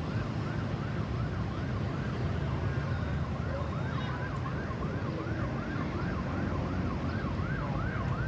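Ambulance's electronic siren on a fast yelp, its pitch sweeping up and down about three times a second, over a steady low traffic rumble.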